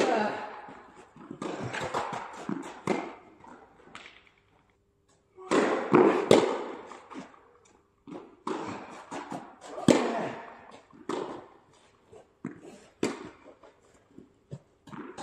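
Tennis ball struck by racket strings in a rally: a few sharp hits several seconds apart, with smaller knocks and court noise between them.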